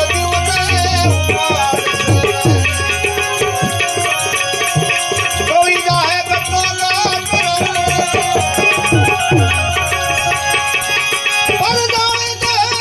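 Gujarati devotional bhajan music: a sustained melody over hand-drum beats, whose bass strokes bend downward in pitch, with a steady rhythm.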